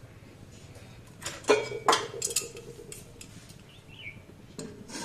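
A stainless-steel plate used as a lid clinking against an aluminium kadai: a few sharp metallic knocks about a second and a half in, one leaving a ringing tone, then lighter clicks and taps as the lid is handled.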